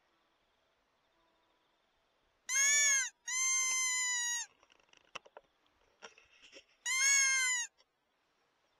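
Fox whistle, a mouth-blown predator call imitating a rabbit in distress, used to call a fox in. It gives three squealing calls: two close together a few seconds in, the second longer, then a third about three seconds later.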